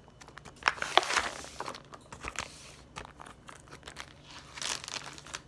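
Clear plastic zip bag crinkling and crackling as it is handled and opened, in irregular bursts that are loudest about a second in and again near the end.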